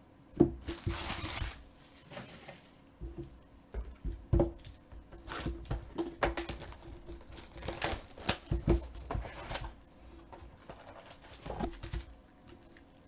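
A foil trading-card pack is torn open near the start with a brief ripping rasp. The cards and wrapper are then handled, giving a string of crinkles, clicks and rustles.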